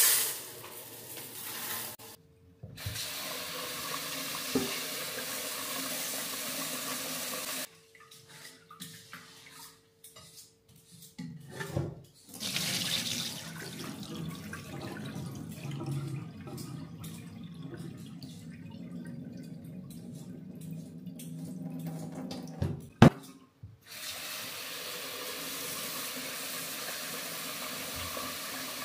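Water running from a kitchen tap and splashing into a stainless-steel sink in several steady spells, as rice is rinsed in a rice cooker's inner pot and the rinse water is poured off. A single sharp knock comes late on.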